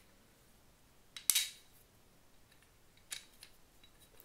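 Small metal parts handled by hand: a sharp click with a short scrape about a second in, and a few softer clicks near three seconds, as the scooter's kickstand riser and its screws are put in place.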